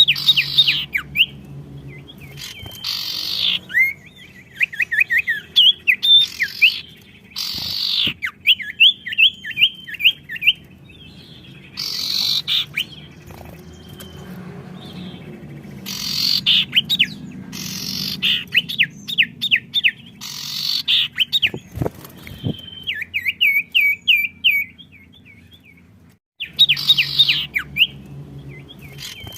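Songbirds singing vigorously and answering each other in repeated loud phrases, each a burst followed by a fast run of high chips.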